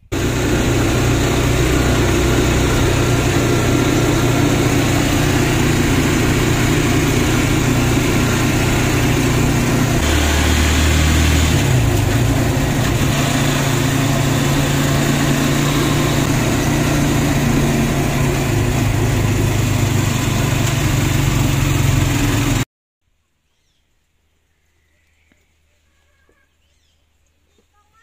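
Vehicle engine running, with road and wind rush, heard from inside the vehicle's open metal cabin. The engine note changes briefly about ten seconds in, and the sound cuts off suddenly a little over twenty seconds in.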